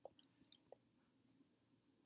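Near silence, with a few faint soft mouth clicks in the first second from chewing a mouthful of fruit cup with popping boba.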